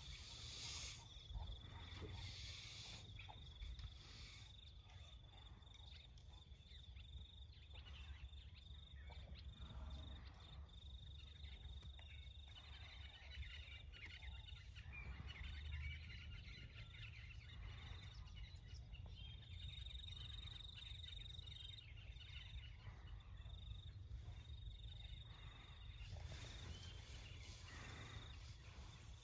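Faint outdoor ambience: insects trilling on a steady high note, over a low, steady background rumble.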